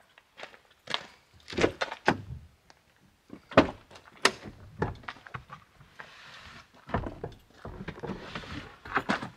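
Chevrolet Silverado pickup doors being opened: a series of sharp latch clicks and thunks as the front and rear crew-cab doors swing open. Footsteps on gravel and rustling come as someone reaches into the cab.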